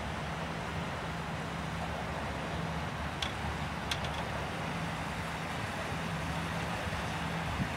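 Boat engine running steadily under wind hiss on the microphone, with two light clicks about three and four seconds in.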